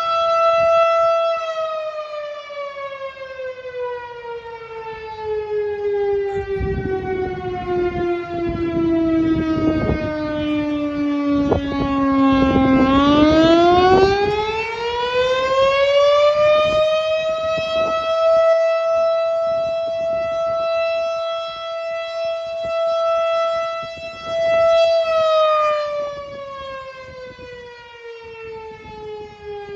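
Federal Signal STH-10A electromechanical fire siren sounding a call-out for a fire. Its tone holds high, winds slowly down to a low pitch about twelve seconds in, winds quickly back up, holds, and starts winding down again near the end.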